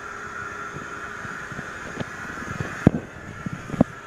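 Steady mechanical hum with a few dull knocks, the loudest about three seconds in, where the background changes abruptly.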